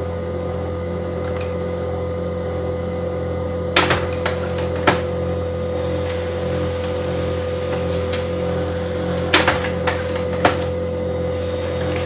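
Canon LBP2900 laser printer running while it prints: a steady motor hum with a constant tone, broken by scattered clicks and clacks of the paper feed, in a cluster about four to five seconds in and again from about eight seconds on.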